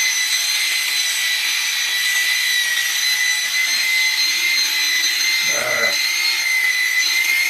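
Small electric motor of a handheld power tool running steadily with a high-pitched whine over a hiss. A short, lower sound breaks in once, about five and a half seconds in.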